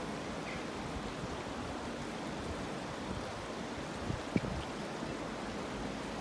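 Steady rush of floodwater flowing through a flooded street, with one short knock a little past four seconds in.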